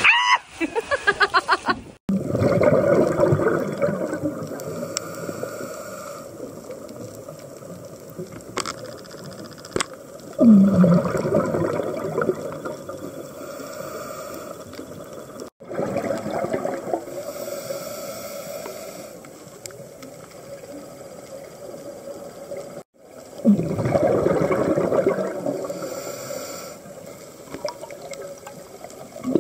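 A splash as a diver drops into the sea, then muffled underwater sound with scuba exhaust bubbles rushing out of a regulator in bursts of a few seconds, several times.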